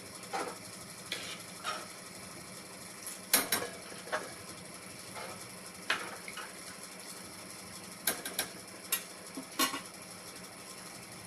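A utensil stirring rice in a pot of boiling water, clinking and knocking against the pot at irregular moments, about a dozen times, the loudest pair about three and a half seconds in.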